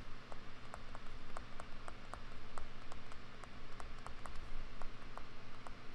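Stylus pen clicking and tapping on a tablet screen while handwriting, a run of small irregular clicks, over a low steady electrical hum.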